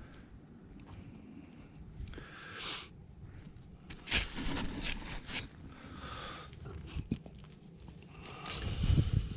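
Mulch and soil scraping and crunching as plants are dug and pulled up by hand, in several short bursts; the loudest is about four seconds in and another comes near the end.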